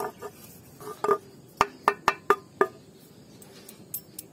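Aluminium cake tin knocked and tapped while flour is shaken round its greased base: a run of about six sharp metallic knocks, each with a short ring, starting about a second in, then a few faint clicks.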